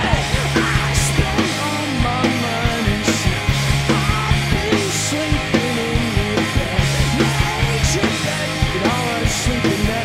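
Rock band playing an instrumental passage live: electric guitar riffing with sliding notes over drums, with cymbal crashes every couple of seconds.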